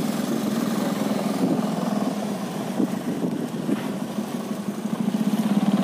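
An engine running steadily with a low pulsing hum that dips slightly mid-way and grows louder near the end.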